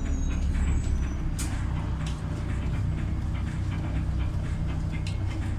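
Cabin noise of a LiAZ 5292.67 city bus under way, heard from inside: a steady low drone from its YaMZ-53624 compressed-natural-gas engine and the road. Short clicks and brief high squeaks from the cabin fittings come in the first second and a half and again near the end.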